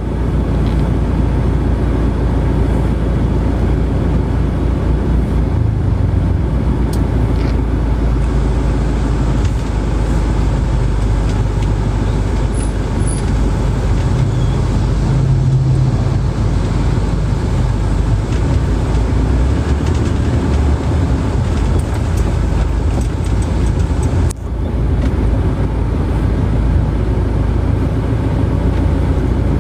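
Steady rumble and road noise of a moving vehicle, heard from inside, with a brief drop about 24 seconds in.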